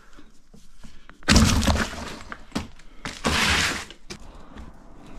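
A steel sawmill bandsaw blade, freshly sprung out of its coil, is handled and clatters twice: once about a second in and again about three seconds in, with the second burst more of a rattling scrape.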